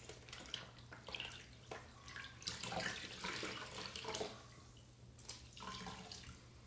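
Water running from a bathroom sink tap and splashing as a towel is soaked under it, irregular and loudest in the middle, easing off near the end.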